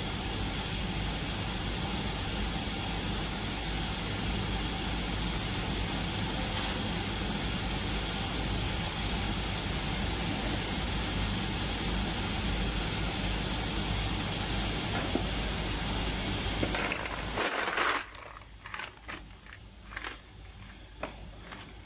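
Steady machine hum and hiss from a running 5-ton-per-day tube ice machine, with ice cubes shifting as a hand stirs the pile. About 18 seconds in it drops to a quieter background with a few sharp clinks of ice cubes.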